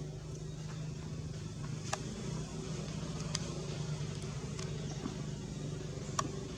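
A motor running steadily with a low hum, with four short sharp clicks spread through.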